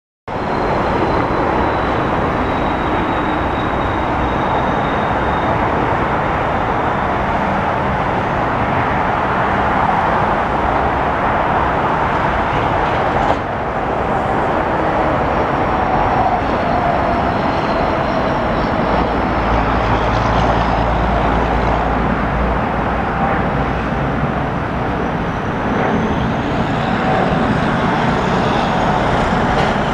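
Steady loud roar of a Boeing 787-10 jetliner climbing out overhead, blended with road traffic noise. A deeper rumble swells for a few seconds past the middle.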